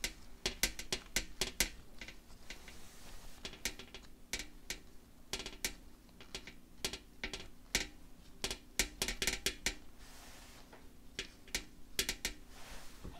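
Kitchen utensils clicking and tapping in quick, irregular clusters of sharp knocks.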